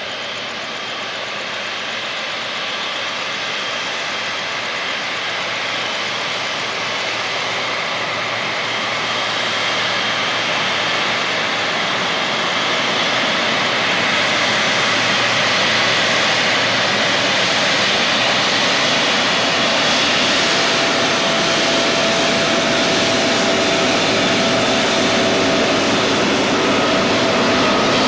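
Boeing 777-300ER's twin GE90 jet engines running at taxi power as the airliner taxis closer: a steady rushing noise that grows gradually louder, with a faint steady whine joining about two-thirds of the way through.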